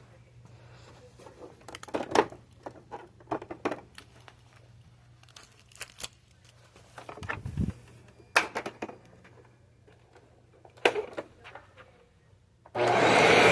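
Scattered clicks and knocks of handling, then near the end a vacuum cleaner switches on and runs with a loud, steady rushing noise.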